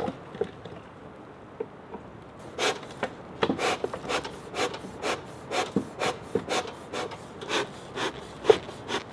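Hive tool scraping the wood of a beehive in short, even strokes, about two a second, starting a couple of seconds in.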